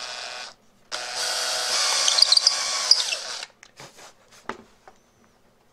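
Electric drill running: a short burst, then a steadier run of about two and a half seconds that stops suddenly. A few light clicks and knocks follow.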